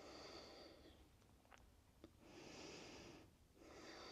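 Faint, slow breathing of a person holding a twisting lunge: three soft breaths, each about a second long, with a couple of tiny clicks between them.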